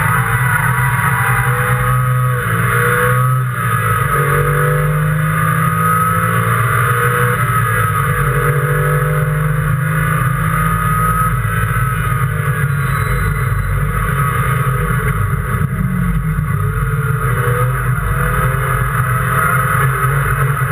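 Race car engine heard from inside the cockpit, running hard on track. Its note climbs with each acceleration and drops back at gear changes and braking, again and again.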